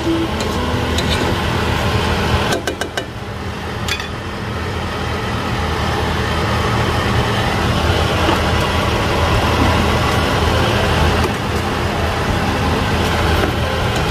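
Chicken cooking in a nonstick pan: a steady hiss over a low hum, with a few sharp clicks of a spatula against the pan, a cluster about two and a half seconds in and another near four seconds.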